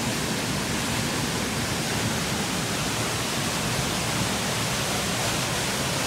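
Waterfall and the river below it: a steady, even rushing of water.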